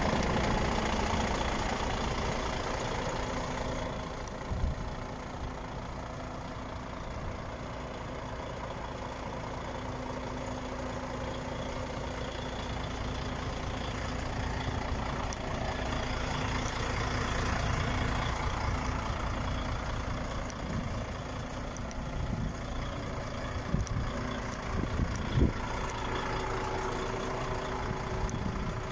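DAF XF105.410 tractor unit's 12.9-litre six-cylinder PACCAR MX diesel idling steadily, with a few short knocks near the end.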